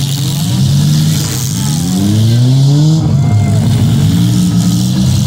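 Several demolition derby car engines revving, their pitch climbing and falling as the cars push and back up against each other.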